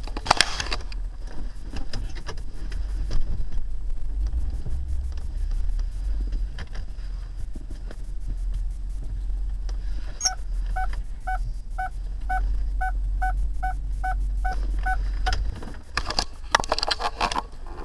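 Low rumble of the Lincoln Town Car's engine and cabin while it backs up. About ten seconds in, a quick, even run of electronic beeps, roughly three a second for about five seconds: the car's reverse sensing alarm warning of something behind. Rubbing and knocking from the handheld camera near the start and the end.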